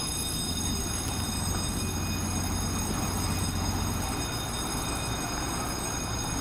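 Inboard engines of a motor yacht rumbling steadily at slow speed as it passes close by, with a low hum that grows stronger for a few seconds and then eases.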